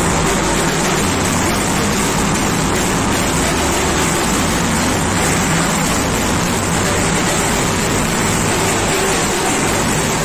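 A group of drums played with sticks in loud, continuous drumming, heard as a dense, steady din without gaps.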